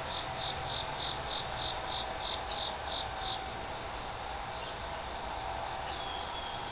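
An insect chirping in a regular train of short high pulses, about three a second, that stops about halfway through, over a steady background hiss and hum.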